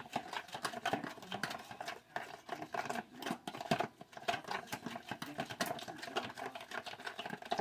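Spoon stirring a thick sauce of French dressing, apricot jelly and onion soup mix in a bowl, with quick irregular clicks and scrapes of the spoon against the bowl.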